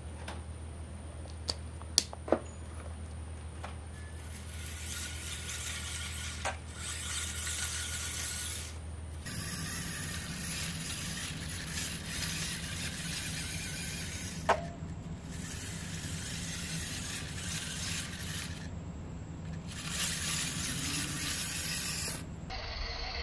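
Small electric motor and 3D-printed four-wheel-drive gear drivetrain of an RC pickup truck whirring and whining in about five bursts of a few seconds each, with short stops between them, as it crawls over small bumps. A few sharp clicks come in the first couple of seconds.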